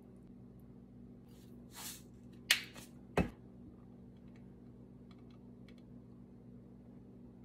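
A metal fork handled against glass dishes: a brief scrape, then two sharp clinks about a second apart, over a low steady hum.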